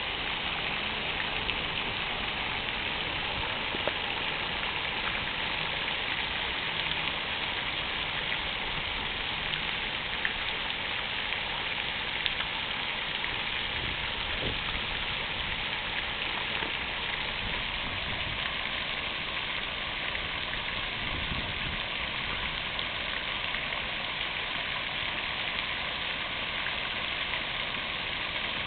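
Fountain water splashing steadily, an even rushing spatter with no breaks.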